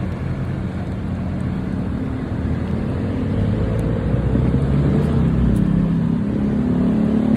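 A motor vehicle's engine running close by, a steady low hum that grows louder from about three seconds in.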